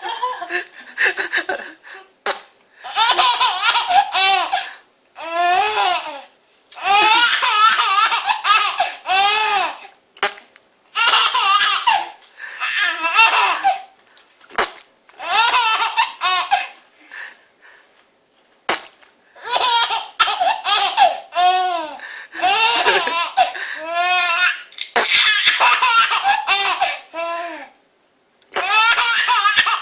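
Baby laughing hysterically in repeated high-pitched bouts, each one to three seconds long, with short pauses for breath between them.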